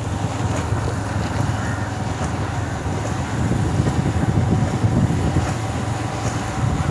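Wind buffeting the microphone of a moving motorcycle, with the bike's engine running steadily underneath.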